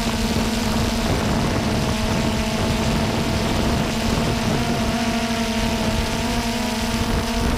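Quadcopter drone hovering and flying, its propellers giving a steady multi-tone whine over a rush of air.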